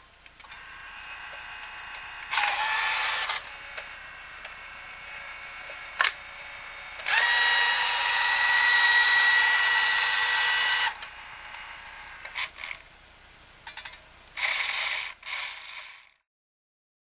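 Small electric motor and gears of a vintage Nikko Super Tanker RC truck whirring in bursts as the transmitter's button is pressed. A faint steady whine is interrupted by a burst of about a second, a sharp click, a long run of about four seconds, and then a few short bursts before the sound fades out.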